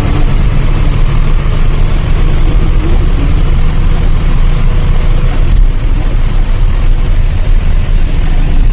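A truck's engine running steadily, a loud, even low rumble.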